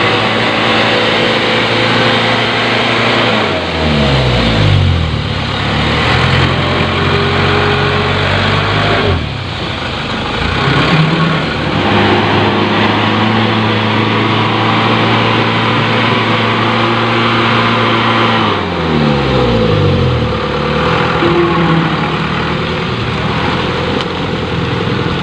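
Loaded dump truck's diesel engine running hard at high revs while it labours through deep mud. The revs drop sharply twice, a few seconds in and again about two-thirds through, then climb back and hold.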